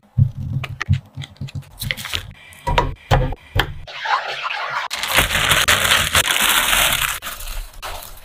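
Kitchen knife cutting a block of butter, with a run of sharp knocks against the board, then butter sizzling with a steady hiss as it melts over low heat in a wok.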